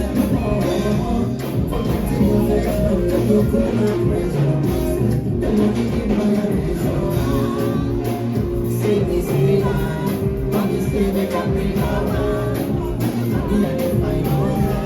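Loud music with a steady beat and a singing voice.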